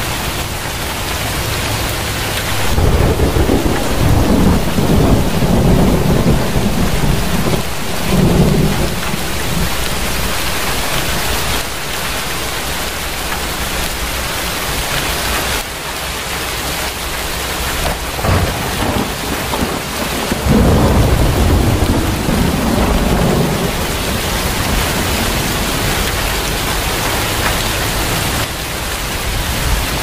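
Steady heavy rain, with two long rolls of low rumbling thunder, the first about three seconds in and the second about twenty seconds in.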